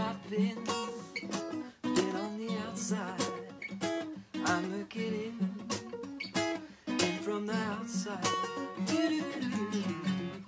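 Acoustic guitar strummed and picked through an instrumental passage, with a voice singing wordless phrases over it at times.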